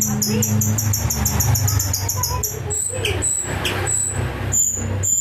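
A songbird known locally as burung geri singing: a rapid run of very high chirps, about seven a second, that changes about three seconds in to slower, separate high whistled notes, about two a second. A steady low hum runs underneath.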